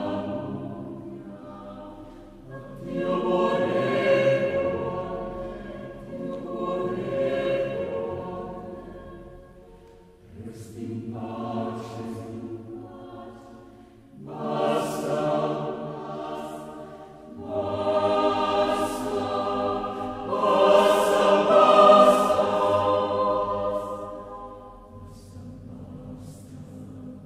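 Background choral music: voices singing held chords in swelling phrases, loudest near the end.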